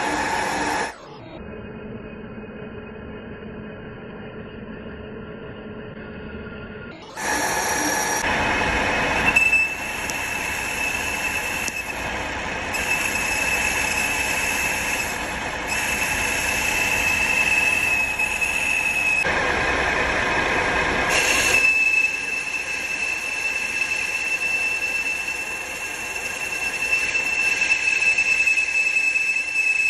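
Metal lathe cutting a steel flange, the spindle running under load. From about a third of the way in, the cutting tool on the steel face gives a steady, high-pitched squeal. The sound changes abruptly several times, with a duller, quieter stretch early on while the drill works the centre.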